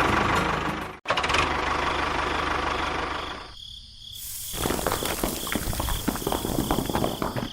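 A small motor running with a rattle. It cuts out abruptly about a second in and dips for a moment in the middle. It then carries on with dense clicking and rattling.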